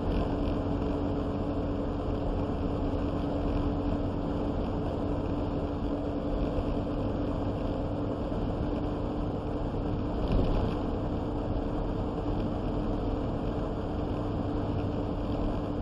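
Steady engine and road noise heard inside a vehicle's cab while driving and towing a trailer, with a constant low hum. There is one brief thump about ten seconds in.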